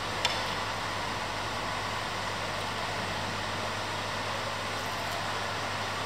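Steady room noise with a low hum, like a café's air conditioning, and one light clink of metal cutlery against a ceramic plate just after the start.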